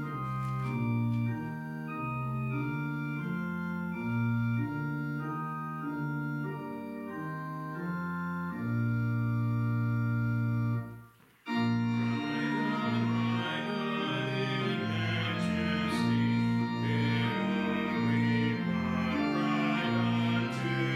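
Organ playing a hymn tune in held chords. It breaks off briefly about eleven seconds in, then resumes with a fuller sound.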